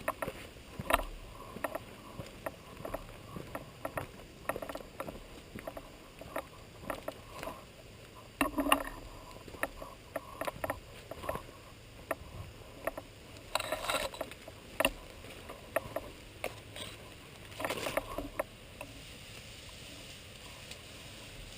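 Irregular rustling and crackling of dry leaves and twigs close to the microphone, with a few louder crunches, as a person moves through undergrowth.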